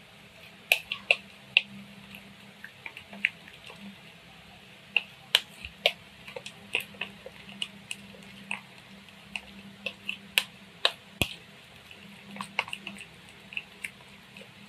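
A metal spoon stirring thick spice paste in a plastic bowl: irregular clicks and taps of the spoon against the bowl, some louder than others, over a faint steady hum.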